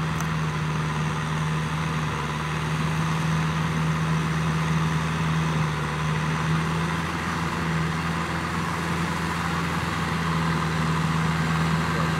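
Kubota M6040SU tractor's diesel engine running steadily at a constant pitch as the tractor crawls through deep paddy mud.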